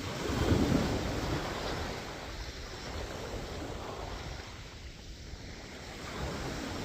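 Sea waves washing on the shore with wind buffeting the microphone; a louder rush of water comes about half a second in, then the wash settles to a steady hiss.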